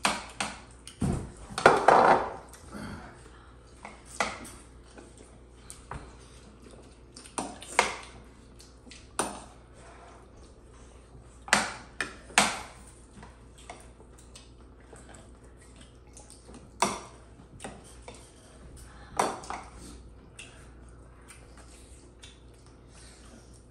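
Cutlery clinking against plates and bowls in scattered single clinks every second or two, with a louder, rougher clatter about two seconds in.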